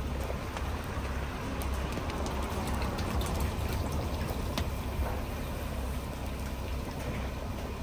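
Food cooking over a wood fire: a steady sizzling hiss scattered with small crackling pops, over a low rumble.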